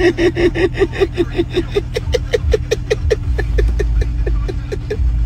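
A person's voice in a long run of short falling pulses, about five a second, slowing and fading near the end, over the low hum of a car engine idling.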